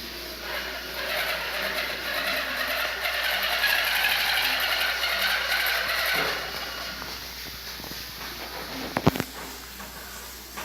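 Homemade radio-controlled model truck running, a steady noisy rush for about five seconds that then dies away, followed by a single sharp knock near the end.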